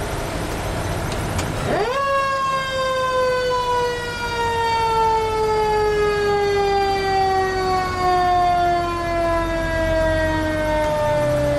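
Fire truck siren winding up quickly to a high wail about two seconds in, then slowly falling in pitch as it winds down, over the low rumble of the truck's engine.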